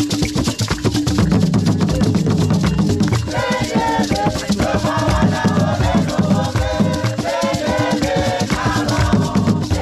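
Ghanaian peg-tuned barrel drums played by hand in a fast, dense rhythm, with hand clapping. A group of voices starts singing about three seconds in.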